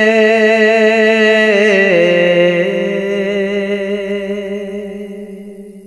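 Male voice singing a naat, holding a long note with vibrato on the last word of a line. The note steps down in pitch about two seconds in and then slowly fades away near the end.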